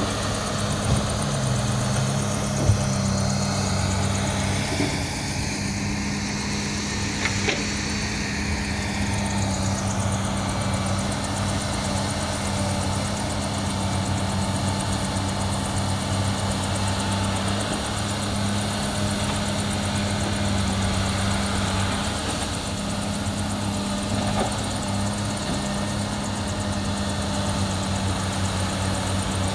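Heavy diesel engine of a Komatsu hydraulic excavator running with a steady drone as it digs and loads a dump truck, with a few sharp knocks in the first several seconds.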